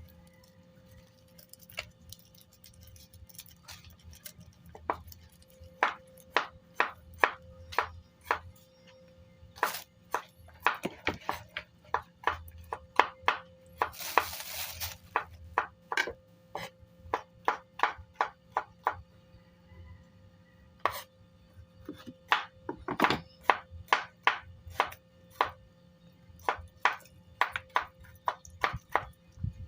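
Knife chopping on a cutting board in irregular runs of sharp strokes, with pauses between runs. A short hissing noise comes about fourteen seconds in.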